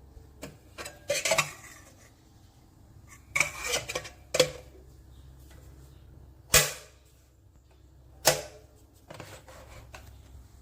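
Handling noises: a run of short knocks, clicks and rustles in about five separate bursts, the sharpest single knocks about six and eight seconds in.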